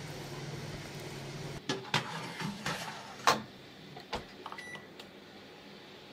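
A steady low hum, then a run of knocks and clatters as a cake tin is set into an oven and the oven door is shut, with the loudest knock about three seconds in. A short electronic beep from the oven's control panel follows near the end.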